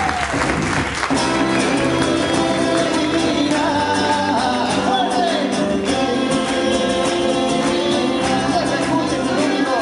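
Live band playing a song led by acoustic guitar, the music starting just as the audience's applause dies away in the first second.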